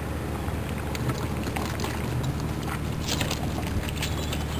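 A steady, low engine drone, with a few light clicks and scuffs about three seconds in.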